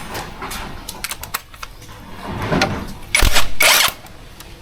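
Hand tools clicking and clanking on metal while the rear end of a scooter is taken apart, with a loud burst of noise lasting under a second about three seconds in.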